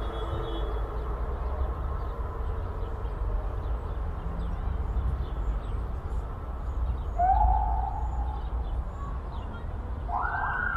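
A siren sounds twice over a steady low rumble: a short steady tone about seven seconds in, lasting about a second, then near the end a second tone that quickly rises in pitch and holds. Birds chirp faintly throughout.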